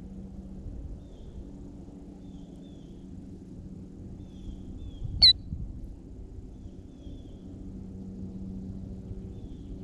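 A killdeer close to the ground gives one loud, shrill call about five seconds in. Faint short bird chirps repeat every couple of seconds over a low steady hum.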